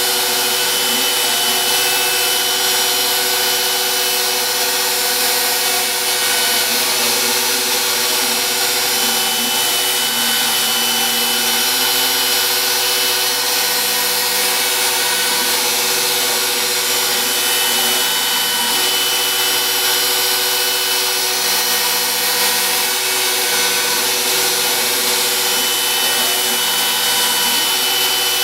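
Home-built CNC router cutting MDF: the router motor runs with a steady whine and the cutter chews through the board, while lower tones shift pitch in short steps as the machine moves the cutter along its path.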